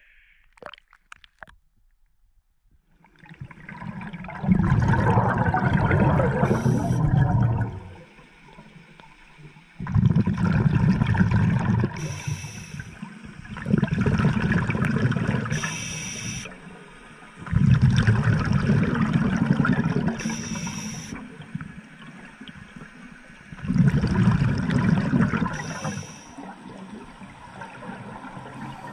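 Scuba diver breathing through a regulator underwater: after a few quiet seconds, five long bubbling exhalations of a few seconds each, with short hissing inhalations between them.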